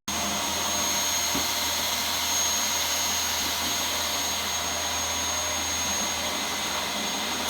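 Table saw running steadily, its motor and blade giving a constant whine over a broad noise, with no change of load.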